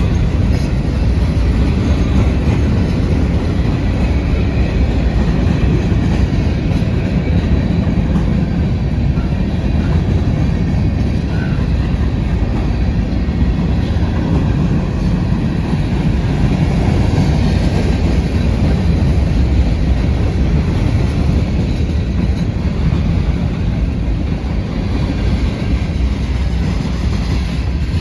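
Train cars rolling past on the rails: a loud, steady rumble of wheels with clickety-clack over the rail joints.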